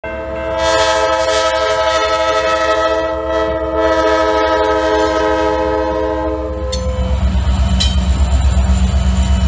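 Diesel freight locomotive air horn sounding a steady multi-note chord for a grade crossing, cutting off about two-thirds of the way through. After that comes the loud, pulsing low rumble of the GE diesel locomotives' engines passing close by.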